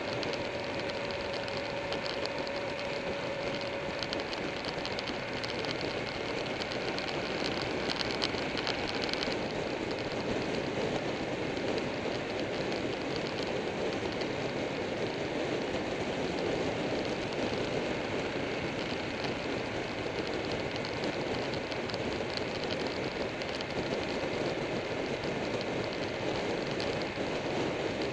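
Steady wind and road noise on a motorcycle-mounted camera at riding speed, with the motorcycle's engine running underneath. A faint steady engine tone fades out in the first few seconds.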